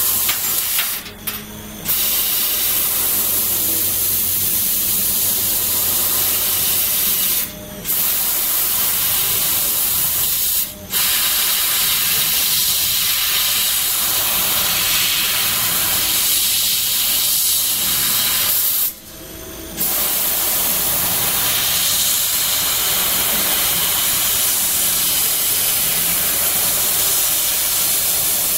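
CO2 laser cutting machine cutting sheet metal, the assist gas jet at the nozzle hissing steadily. The hiss cuts out briefly four times, between one cut and the next.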